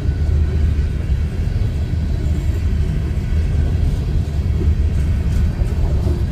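Empty coal cars of a freight train rolling past: a steady low rumble of steel wheels on the rails.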